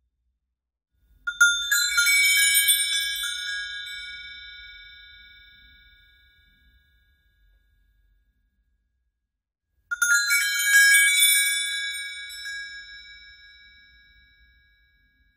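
Entrance bells jangling as a cluster of small bells is struck together, then ringing out and fading over about five seconds; this happens twice, about a second in and again near ten seconds.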